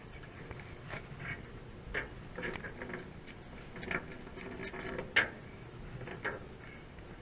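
Irregular light clicks and taps, spaced out by a second or so, from hands working a freshly caught scup off the hook and handling the rig. The sharpest tap comes a little after five seconds in.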